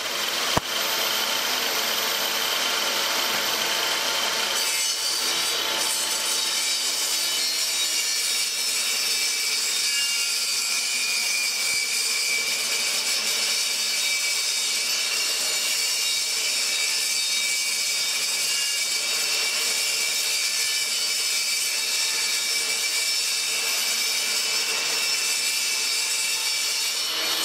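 Portable table saw ripping thin plywood lengthwise into shelf strips, blade and motor running steadily through a long cut.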